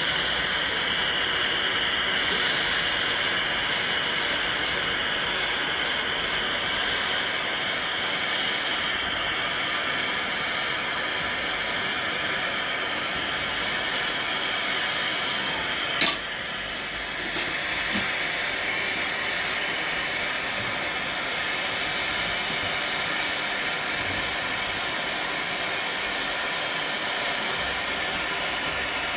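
Express Cat. No. 4600 hot air gun running steadily, blowing hot air onto a heat-shrink sleeve, with a continuous hiss from its fan and airflow. About halfway through comes a single sharp click, after which the sound briefly dips quieter.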